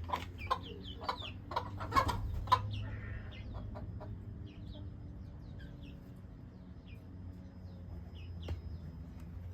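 Mother hen clucking to call her chick in to roost for the night, with the chick's high peeping. The clucks come quickly in the first two or three seconds, then mostly faint, scattered peeps follow.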